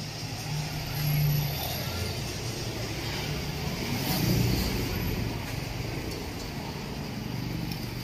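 Road traffic: motor vehicles passing along the street, their engine hum swelling twice, about a second in and again around four seconds in.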